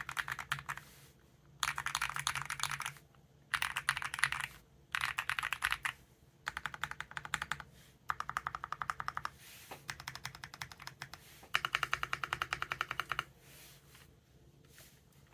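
Typing sound test on a GMK67 gasket-mounted keyboard fitted with Akko Blue V3 switches lubed with 205g0, with polyfill in the case. Short bursts of fast keystrokes, each a second or so long, separated by brief pauses.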